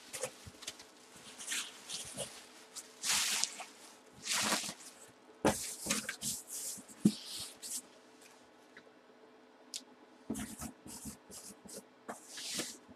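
Cardboard shipping box being shifted and handled, with irregular scuffs, rubs and a few knocks, then a marker scrawling on the cardboard near the end.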